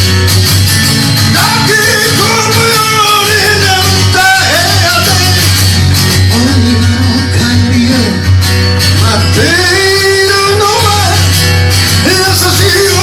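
Rock song with a lead vocalist singing over electric guitar and a steady bass line.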